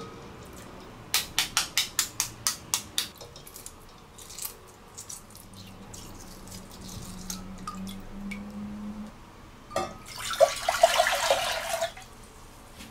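A hard-boiled egg's shell being cracked in a glass bowl of ice water: a quick run of about nine sharp clicks, then faint wet sounds of peeling. Near the end, liquid is poured into a saucepan with a loud splashing pour lasting about two seconds.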